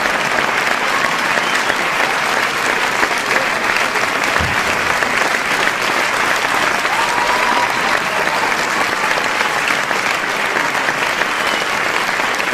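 A large audience applauding, dense and steady, with faint shouts from the crowd mixed in.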